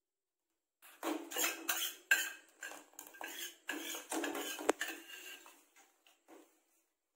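A ladle scrapes and clinks against the sides and bottom of a stainless steel saucepan as a thickening chocolate pudding mixture is stirred. The strokes start about a second in and come in a quick, uneven run, with a few sharper clinks.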